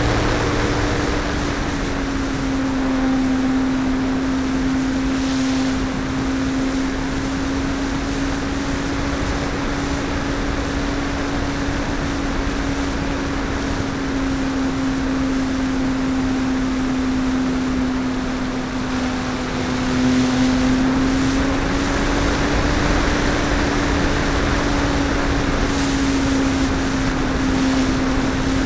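Brushless electric motor and propeller of a Parkzone P-51D Mustang BL foam RC plane droning steadily in flight, heard from a camera mounted on the plane over a steady rush of airflow noise. The pitch sags slightly about two seconds in and rises a little around twenty seconds in as the throttle changes.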